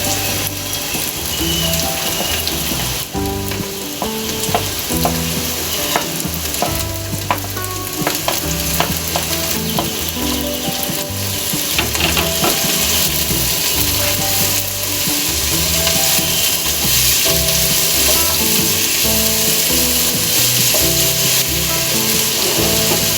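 Chopped vegetables stir-frying in hot oil in a pan, with a steady sizzle throughout. A spatula scrapes and clicks against the pan now and then.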